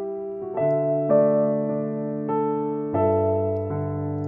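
Background piano music: slow, gentle notes and chords, a new one sounding about every half second to a second and ringing on.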